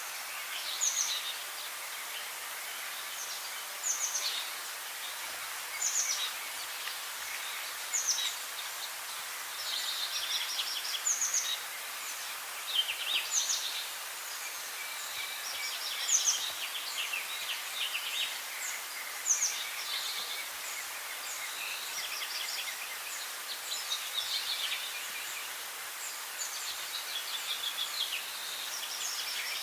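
Songbirds singing short, high chirping phrases every couple of seconds, coming thicker later on, over a steady background hiss.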